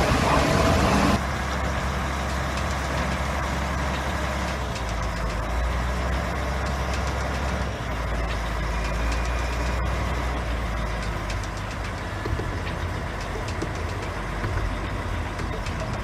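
Truck-mounted crane's diesel engine running steadily with a low hum, with a few light knocks later on. For about the first second a louder, noisier vehicle sound comes first, before it drops to the steady engine hum.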